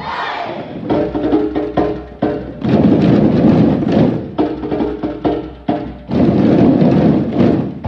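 Hand drumming on djembes, the teacher's drum and a hall full of children's drums. Runs of quick hand strikes come with short breaks between them, and the two loudest, densest passages start around a third of the way in and again near the end.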